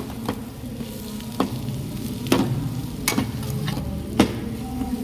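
Perforated metal skimmer spoon stirring and scraping potatoes frying in a pan over a low sizzle. The spoon knocks against the pan about once a second.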